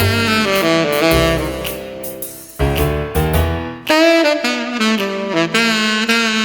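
Background music: a jazz tune with a saxophone carrying long held notes over a bass line, dipping briefly about two and a half seconds in.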